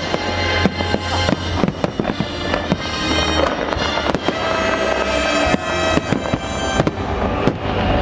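Aerial fireworks bursting in quick succession, with many sharp bangs and crackles, over loud show music.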